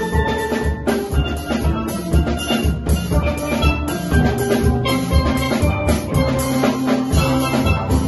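Steel band playing a Christmas medley: chrome steel pans struck in quick runs of ringing notes, backed by bass pans and a drum kit keeping a steady beat.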